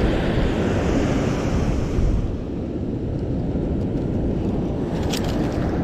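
Surf washing on the beach with wind buffeting the microphone, a steady low rumble with extra hiss for the first couple of seconds. A few sharp light clicks near the end.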